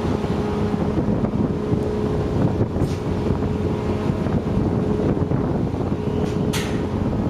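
Wind buffeting the microphone over the steady low rumble of a large car ferry's engines and deck machinery while it lies at the berth with mooring lines out. A faint steady hum runs under it, and there are two short hisses, about three seconds in and near the end.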